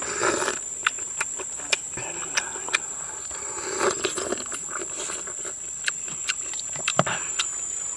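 A steady high insect drone runs throughout, with scattered sharp clicks and knocks of a wooden ladle against a metal wok of soup. There is a brief slurp from the ladle at the very start.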